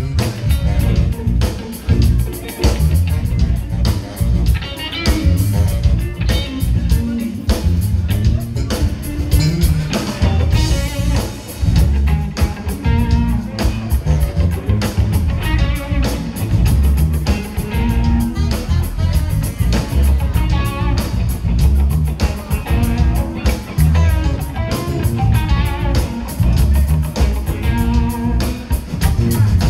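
Live Chicago-style electric blues band playing: electric guitars over bass guitar and a drum kit keeping a steady beat.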